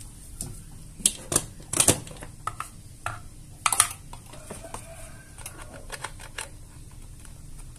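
Plastic plugs and power cables being handled and knocked against a workbench: several sharp clicks in the first four seconds, then lighter ticks.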